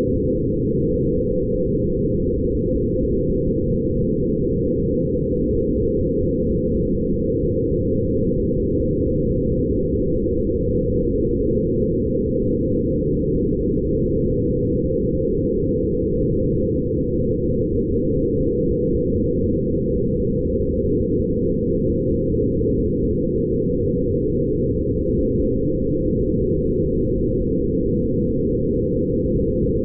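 Steady, dense low drone made by passing photographs of light through sound-editing software: an image turned into sound. It holds level throughout, with nothing high in it.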